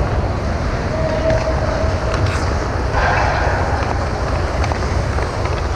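Ice hockey rink during play: a steady low rumble and hiss, with a few faint distant calls and light taps.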